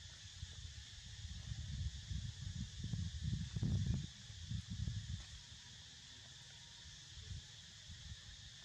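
Steady chirring chorus of insects, with a low rumbling noise that swells for a few seconds in the middle and is loudest about three to four seconds in.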